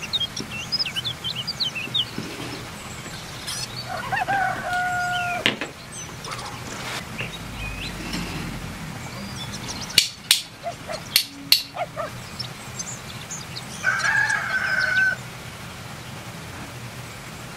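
Birds in the background: small birds chirping near the start, and two longer, held calls, one about four seconds in and one near the end. A quick run of about five sharp clicks comes in the middle, over a steady low hum.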